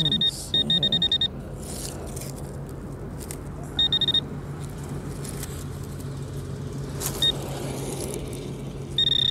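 Garrett pinpointer beeping in short bursts as its tip is worked through the loose soil of a dig hole. The beep is a high tone that sounds steady or pulses quickly, signalling metal near the tip. Between alerts there are soft scrapes of the probe in the dirt.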